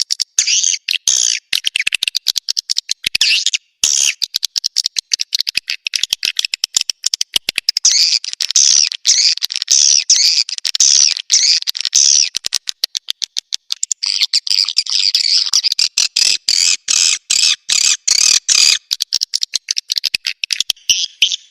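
Swiftlet-house lure recording of edible-nest swiftlet calls: rapid high-pitched chirps and twitters, cut into many short bursts with abrupt gaps, with longer trilling runs in the middle and later part.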